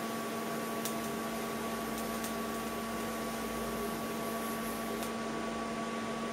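TIG welding arc on a stainless steel tube, a steady hiss over a constant hum; the arc stops about five seconds in and the hum carries on.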